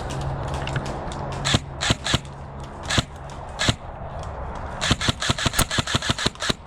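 Airsoft guns firing: several single shots spaced over the first few seconds, then a rapid burst of about ten shots a second from about five seconds in.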